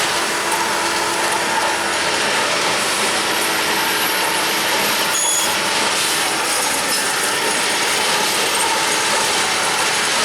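Steady, loud noise of a train running on the rails.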